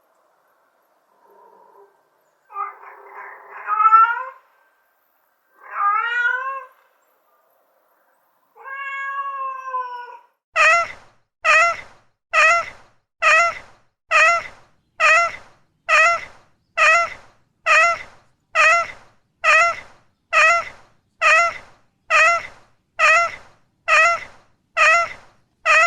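Domestic cat meowing: three separate drawn-out meows, then from about ten seconds in a short, identical mew repeated a little under once a second, like a loop.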